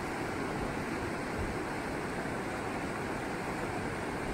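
Steady rush of a fast mountain river running over boulders and small rapids.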